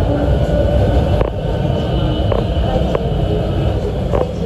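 Cabin sound of a 762 mm narrow-gauge electric train running along the line: a steady low rumble with a faint hum, broken by a few short sharp clicks.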